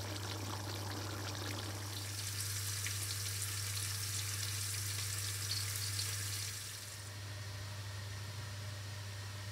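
Chicken and potato curry sizzling and crackling in a pan on the hob over a steady low hum. The sizzle stops suddenly about seven seconds in, leaving only the hum.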